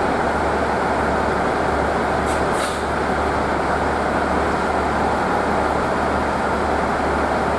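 A long freight train of container wagons rolling past, with a steady rumble of wheels on rail and two brief high hisses about two and a half seconds in.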